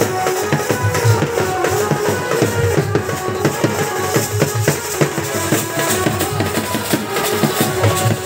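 Live desi band playing naagin dance music: a large double-headed drum beaten in dense, fast strokes under a held, steady melody line.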